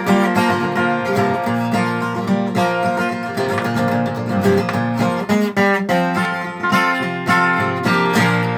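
Acoustic guitar strummed and picked in an instrumental break of a country gospel song, with no singing.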